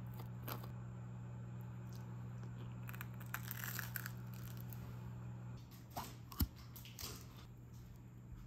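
Faint handling sounds of a crusty bagel and a table knife: scraping and crunching as butter is spread and the bread is handled, with a few light taps. A sharper tap comes about two-thirds of the way through. A low steady hum runs underneath and stops shortly before that tap.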